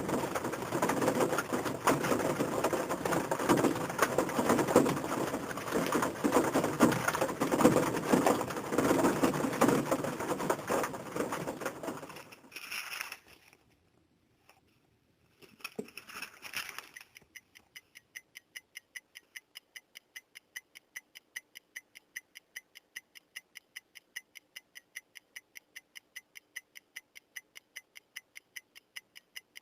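A dense, noisy sound for about twelve seconds that stops, two short bursts, then an even ticking about three times a second, like a clock.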